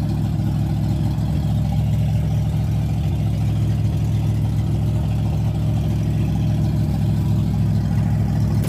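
An engine idling steadily, an even hum that does not change.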